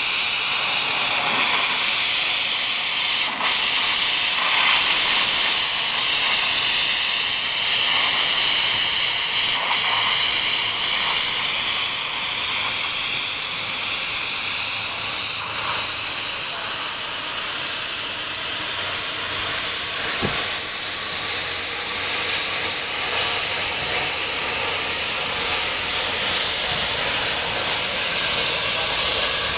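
Steady loud hiss of steam blowing from the open cylinder drain cocks of a small narrow-gauge steam tank locomotive as it moves slowly along the track. The open drain cocks are clearing condensed water from the cylinders.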